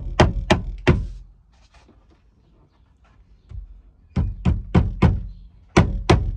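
Hammer blows struck in quick runs of about three a second: a few at the start, a pause of about three seconds, then the blows start again and keep going.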